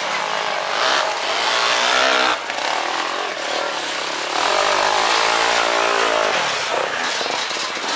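Enduro dirt bike engines revving in bursts as the bikes climb over rocks, the nearest one rising and then falling in pitch in the middle.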